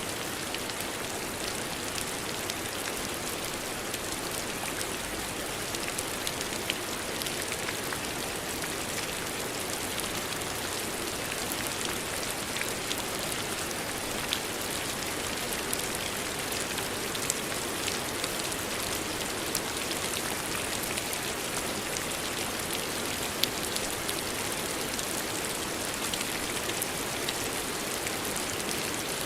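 Steady rain falling, an even hiss of drops hitting a surface with scattered sharper drip ticks throughout.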